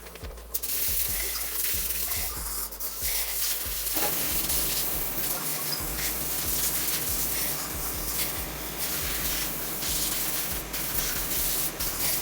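A steady spraying hiss that starts about half a second in, over a low hum.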